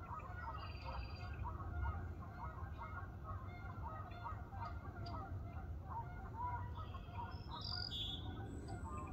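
A steady chorus of many short, overlapping honk-like animal calls, with higher bird chirps above it.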